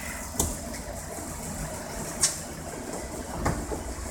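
Nissan X-Trail engine idling steadily, with three sharp clicks as the high beam is switched on and off.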